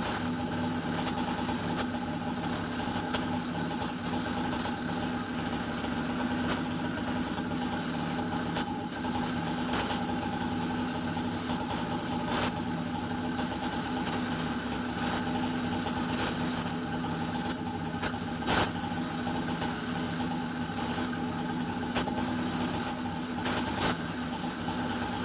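A motorized bicycle's small two-stroke kit engine idling steadily with the bike standing still, a few sharp clicks sounding over it.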